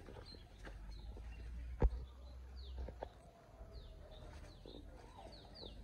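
Birds chirping over and over in short falling chirps, with one sharp knock about two seconds in.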